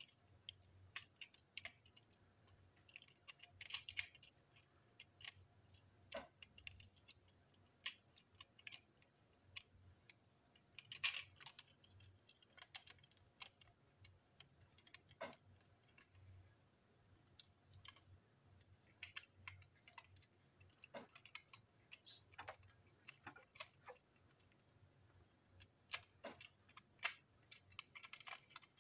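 Faint, irregular clicks and taps of small plastic toy-train parts being handled on a tabletop. The clicks come in brief clusters about 4 seconds in, about 11 seconds in, and near the end.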